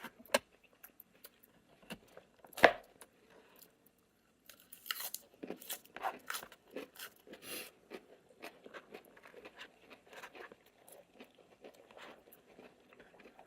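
Close-up eating sounds: quiet chewing and crunching of food, with scattered small clicks and scrapes and one sharp click a little over two seconds in.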